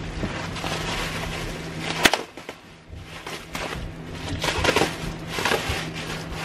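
Shipping packaging being handled and rustled while a replica championship belt is pulled out of the box, with a single sharp crack about two seconds in.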